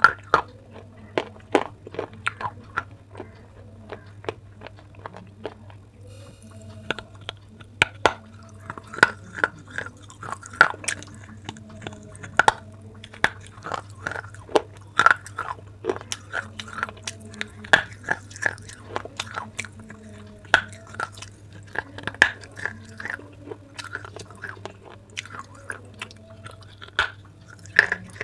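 Close-up biting and crunchy chewing of baked clay pot pieces: irregular sharp crunches, sometimes several in quick succession, over a steady low hum.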